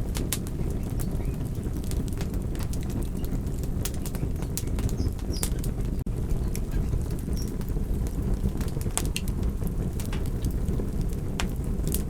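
Wood fire burning in a fireplace: a steady low rumble of flames under irregular sharp crackles and pops from the burning wood.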